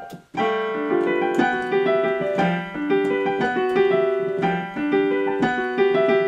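Electric keyboard played in piano voice, a run of notes and chords starting about half a second in and carrying on steadily.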